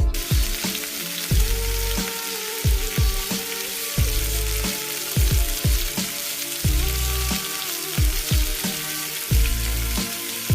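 A steady crackling sizzle, like food frying in a pan, that cuts in and cuts off abruptly, laid over background music with a regular deep beat.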